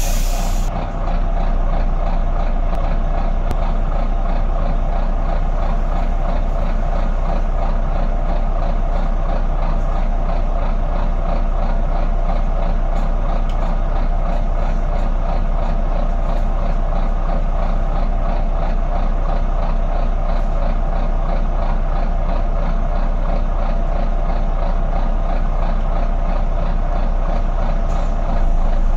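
Volvo B9TL double-decker bus's six-cylinder diesel engine idling steadily, heard from the upper deck, with a short hiss of air right at the start.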